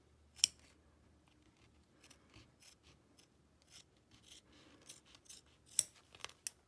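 Applique scissors snipping thin white vinyl close to the stitching: one sharp snip about half a second in, then a run of small, quiet snips, with a few louder ones near the end.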